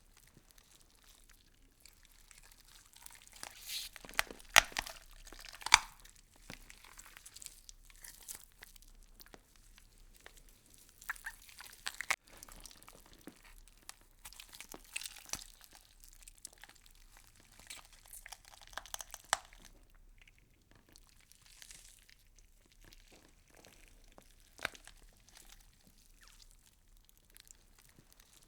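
Insects chewing through leaves: irregular crisp crunching, crackling and small tearing sounds, with two sharp snaps about four and a half and six seconds in.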